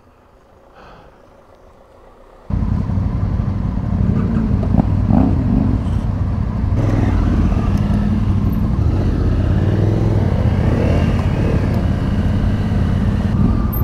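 Fairly quiet for the first two seconds or so. Then, suddenly, a motor vehicle's engine is heard running loudly and steadily, with road noise and a vehicle seeming to pass in the middle.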